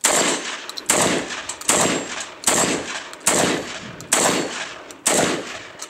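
FN SLP Mach 1 Police Edition 12-gauge semi-automatic shotgun fired seven times in rapid succession, a shot a little under every second, each blast trailing off in echo.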